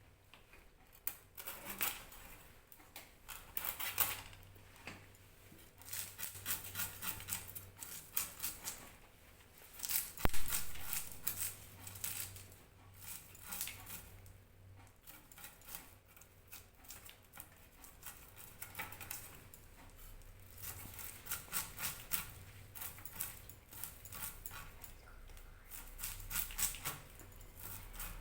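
A blade scraping and cutting a whole hilsa fish in short, irregular strokes, with one sharp knock about ten seconds in.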